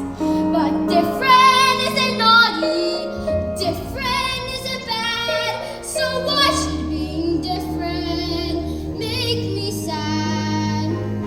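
A child singing a slow solo song, with long held notes that waver in pitch, over instrumental accompaniment.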